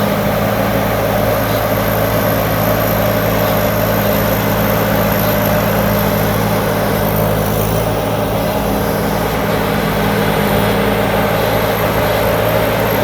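The engine of a Thai Seng Super Jiw 165-horsepower combine harvester running steadily at a constant pitch while it harvests rice.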